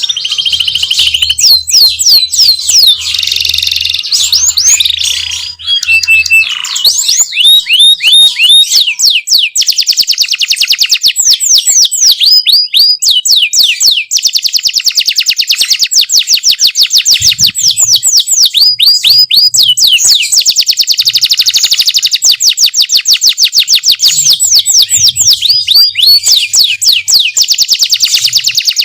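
Domestic canary singing loudly without a break: fast rolling trills of rapidly repeated notes, mixed with a few varied chirps in the first few seconds.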